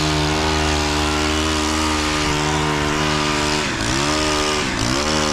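Chainsaw running steadily at high revs, its pitch dipping and coming back up quickly a few times near the end.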